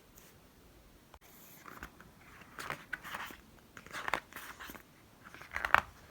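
Paper rustling and crinkling in four short bursts, the loudest near the end, as a book's pages and cover are handled.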